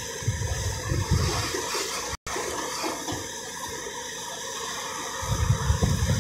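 Heavy diesel engines of a Volvo EC350DL excavator and a Hohan dump truck running as the truck reverses into position beside the excavator. A low rumble swells about five seconds in, and the sound cuts out for an instant just after two seconds.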